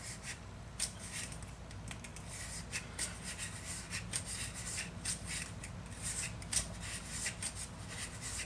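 Solvent-wetted bronze bore brush scrubbed back and forth through a Ruger SR9c's 9mm pistol barrel: repeated scratchy strokes, roughly two a second.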